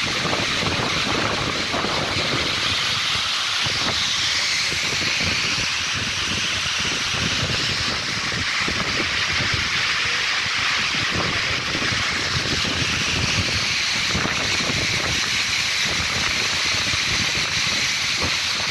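Steady rushing hiss of a waterfall pouring down a cliff, with wind buffeting the microphone in irregular low gusts.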